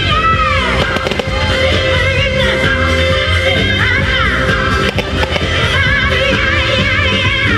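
Music plays over a fireworks display, with a few sharp firework bangs and crackles cutting through it about a second in, again around five seconds, and near the end.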